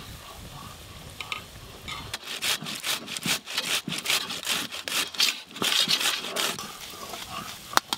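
A tomato being grated on a stainless-steel box grater. From about two seconds in there is a run of rasping strokes, a couple a second, as the flesh is pushed across the metal teeth.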